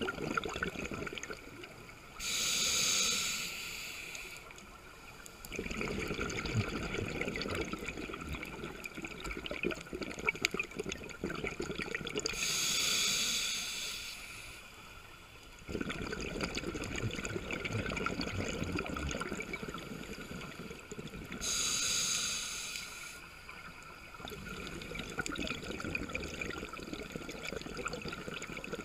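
Scuba diver breathing through a regulator underwater: three breaths, each a short hissing inhalation followed by a long bubbling exhalation, about nine to ten seconds apart.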